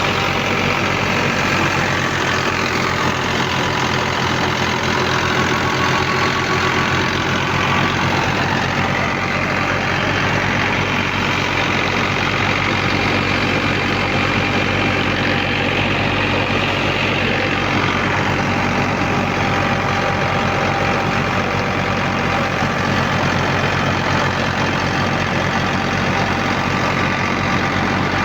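Engine of wheat-harvesting machinery running steadily, with a higher whine that dips and rises in pitch during the first half.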